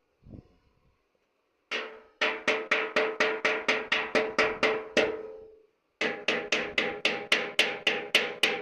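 Hammer blows on a steel frame in two quick runs of about five blows a second, each blow ringing with a metallic tone.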